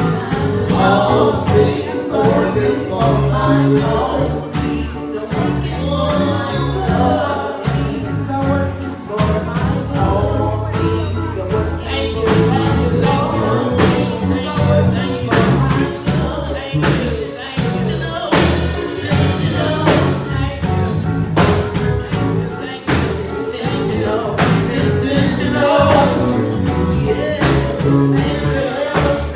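Gospel song: singing over a band with a steady bass line and regular drum hits.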